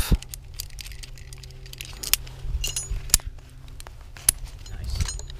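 Carabiners and other metal rappelling hardware on a climbing harness clinking and jangling, a scatter of sharp metallic clicks, some ringing briefly, as the cow's tail is unclipped and the rappel begins.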